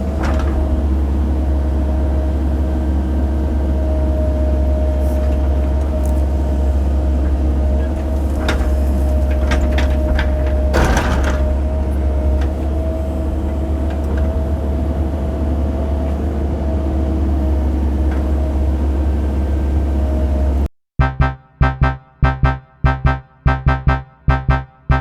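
Cat 308 excavator's diesel engine running steadily under load, with a steady hydraulic whine and a couple of knocks from the bucket working. About twenty seconds in it cuts off abruptly into electronic keyboard music with a steady beat.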